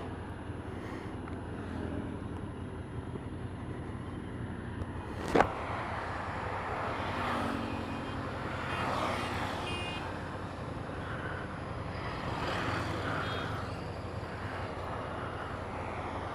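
Motorcycle riding on the road: steady engine and wind noise on the rider's microphone. There is one sharp click about five seconds in, and short pitched tones come in around the middle.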